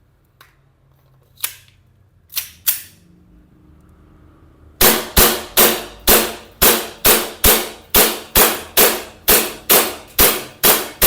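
Double Bell 303 gas blowback airsoft pistol: a few handling clicks, then fired in a steady string of about fifteen shots, roughly two a second, until the magazine runs out of BBs.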